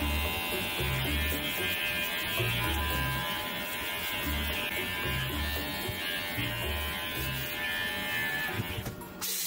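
Electric pet hair clipper set to a 3 mm cut, buzzing steadily while trimming a chihuahua's coat. It stops shortly before the end. Background music with a repeating bass line plays under it.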